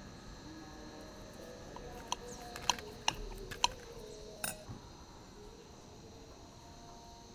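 Steel knife and fork clinking against a porcelain plate while cutting an omelette: about five short, ringing clinks in quick succession, over a faint quiet background.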